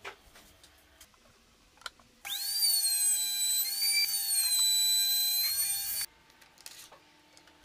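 Power saw with a circular blade cutting plywood: a loud, high motor whine that starts abruptly a couple of seconds in, drops slightly in pitch under load partway through, and cuts off sharply about four seconds later. Light handling knocks before and after.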